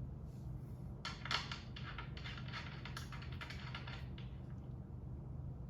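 Fast typing on a compact 60% mechanical keyboard with red switches: a quick run of light key clicks starting about a second in and stopping about four seconds in, over a faint steady low hum.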